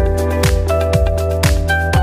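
Electronic background music with a steady kick-drum beat, about two beats a second, under held notes.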